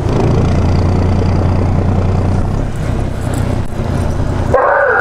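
Fishing boat's engine idling with a steady low hum under wind and water noise, while a fish is reeled up. Near the end comes a short shout.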